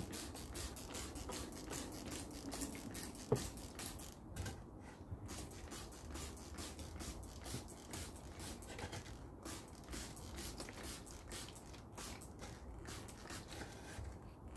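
Hand-pumped trigger spray bottle squirted over and over, several quick hissing squirts a second, misting oil onto carved wood. One sharp click a little over three seconds in.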